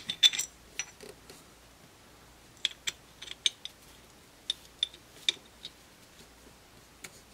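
Small, sharp metal clicks as the steel side plate is pressed onto a Korth Sport revolver's frame and lockwork: a quick cluster at the start, then scattered clicks a few at a time.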